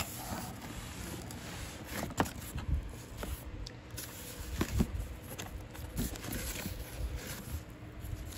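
Cardboard box flaps being pulled open and handled by hand, with rustling and scraping of cardboard and a few sharp knocks and clicks.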